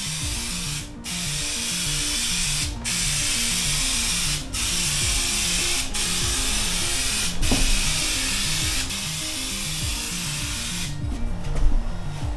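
Aerosol spray paint can hissing in passes, with brief breaks every second or two as the nozzle is released, and stopping about eleven seconds in; a short run of clicks follows near the end.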